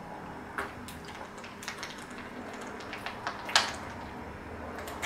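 A person drinking water close to the microphone: a series of small clicks and knocks from the mouth and the drink's container, the loudest about three and a half seconds in.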